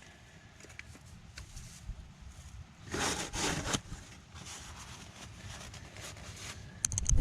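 Quiet shuffling and handling noises, with a louder rustling scrape about three seconds in and a quick run of small clicks near the end.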